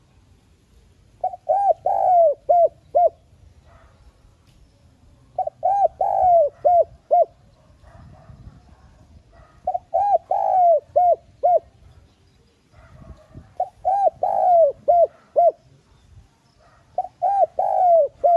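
Spotted dove cooing: a phrase of quick short coos with a longer, falling note in the middle, repeated about every four seconds, four times in full and a fifth starting near the end.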